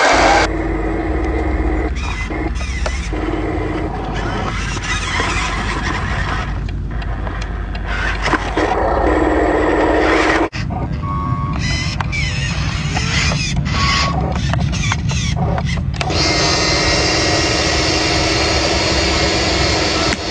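Small electric motors and gearboxes of radio-controlled construction vehicles whirring, with a steady whine that starts and stops in stretches as the controls are worked.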